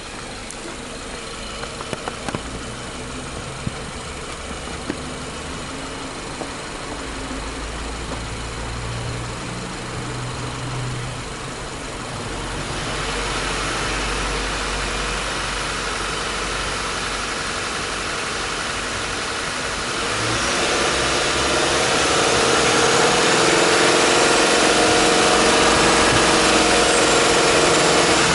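Subaru Impreza Sport 2.0i's 2.0-litre boxer four-cylinder engine running with the hood open. It grows louder about twelve seconds in and again about twenty seconds in, then holds a steady, even drone.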